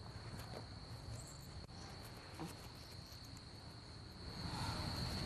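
Crickets trilling steadily, one unbroken high-pitched drone, getting a little louder near the end.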